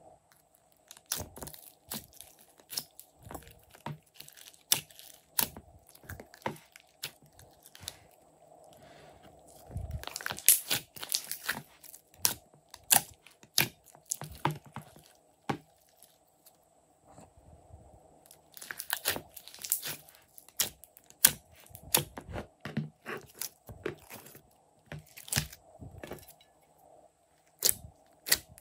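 Hands kneading and pressing glossy slime mixed with soft clay, giving irregular sharp pops and crackles as the sticky slime pulls and air pockets burst, with denser runs about a third and two-thirds of the way through.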